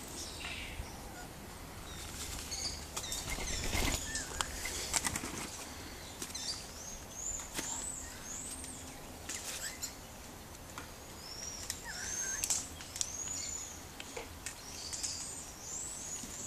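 Repeated high-pitched chirps, each rising then falling, coming about once a second through the second half, with scattered clicks and knocks.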